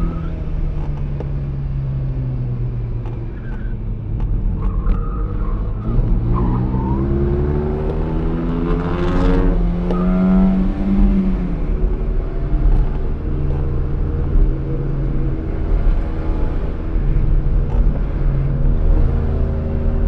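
Fiat X1/9's mid-mounted four-cylinder engine under racing load, heard from inside the cabin, its pitch climbing and dropping again and again through gear changes and lifts.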